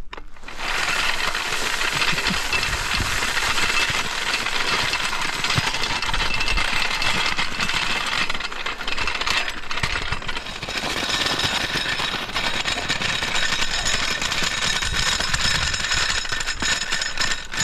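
Floor jacks being pushed by the handle over gravel and dirt, a continuous scraping and rattling. First the red floor jack's small stock wheels grind and skid across the ground. After a short dip about ten seconds in, the aluminium floor jack fitted with large phenolic caster wheels rolls and rattles over the dirt.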